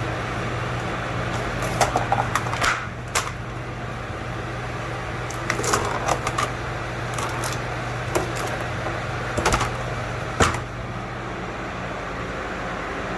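A steady mechanical hum with scattered sharp clicks and knocks, bunched about two seconds in, around the middle, and near ten seconds.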